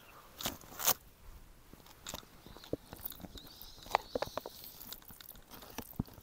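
Spoon clicking and scraping in a foil freeze-dried meal pouch as a man eats rehydrated risotto, with chewing between spoonfuls. It comes as scattered sharp clicks, the loudest about a second in and again about four seconds in.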